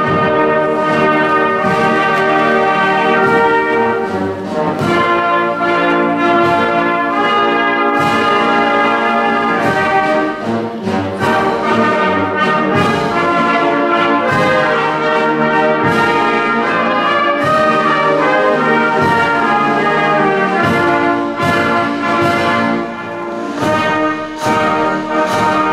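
Brass band playing a slow piece in a church, the notes ringing in the hall's echo.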